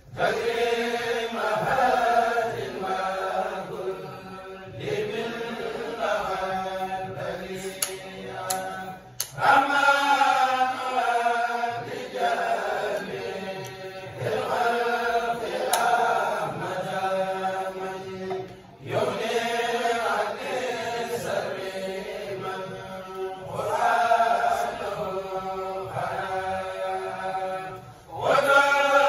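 A kourel, a group of men, chanting a Mouride khassida together without instruments. The chant goes in sung phrases a few seconds long, with short breaths between them.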